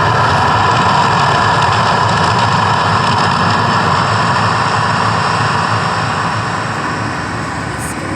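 Steady roar of the Mirage's man-made volcano erupting, easing off a little near the end.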